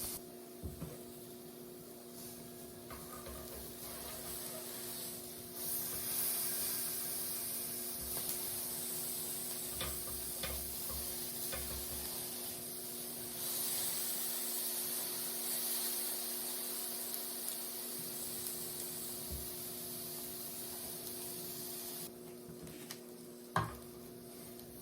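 Chicken breasts sizzling on a hot grill: a steady hiss that swells a few seconds in and again around the middle, then drops back near the end. A steady low hum runs underneath, and there is a single sharp knock near the end.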